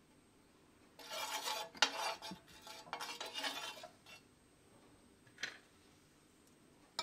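A steel spoon scraping and clinking across a nonstick tawa as oil is spread over the hot pan, for about three seconds starting a second in, with one sharp clink near the middle. A few light taps of the spoon follow.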